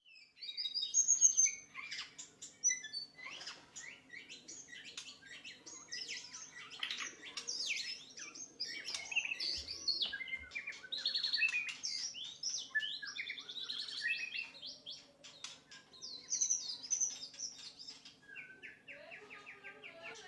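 White-rumped shama (murai batu) singing a fast, continuous song of varied whistles and chattering phrases, with a faint steady hum beneath.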